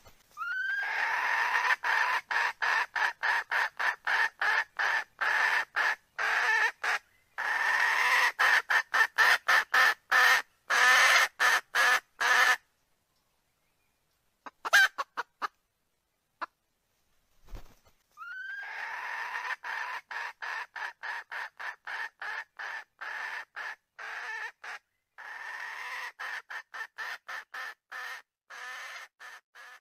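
Recorded wild chicken calls played back as a hunting lure for wild roosters: long runs of rapid clucking notes, about three a second. There are four runs that start and stop abruptly, two of them opening with a short rising note.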